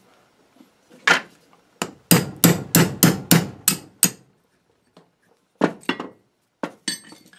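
Hammer blows on a punch, driving out the pin that holds the screw in a York 100 vice. A couple of single blows, then a quick run of about seven strikes at roughly three a second, then a few lighter knocks near the end.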